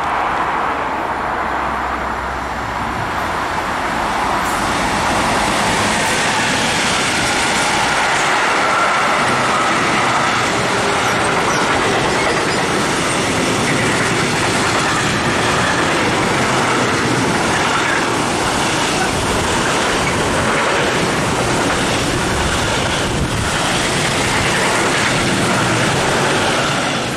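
Long freight train of covered and car-carrier wagons passing close by at speed, a steady loud rolling of wagon wheels on the rails that builds about four seconds in.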